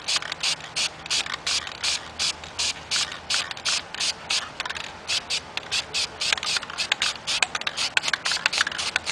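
Aerosol spray paint can sprayed in rapid short bursts, about four hisses a second.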